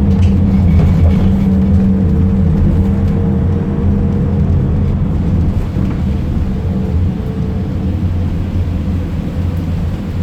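Fiat Ducato minibus's diesel engine running with road noise, a steady low drone that eases a little about halfway through.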